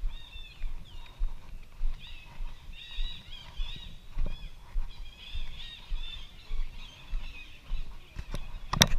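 Birds chirping and calling in short, repeated phrases, over low footstep thuds about twice a second from someone walking with the camera. A few sharp clicks come near the end and are the loudest sounds.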